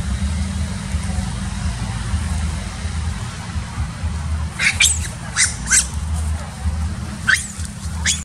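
Long-tailed macaques giving short, high-pitched squeals, four in quick succession about halfway through and two more near the end, over a steady low rumble. The squeals are typical of a macaque being threatened in a squabble.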